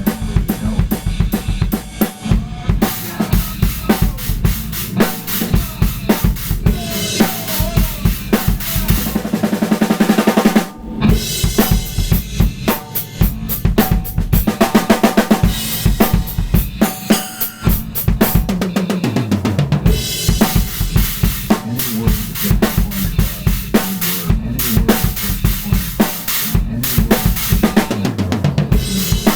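Drum kit played in a free improvisation, with dense, fast strokes throughout. A very fast run about nine seconds in breaks off briefly near eleven seconds, then the groove picks up again.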